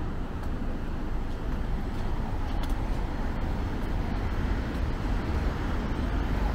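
Street traffic: cars and vans passing at an intersection, a steady hum with a constant low rumble underneath.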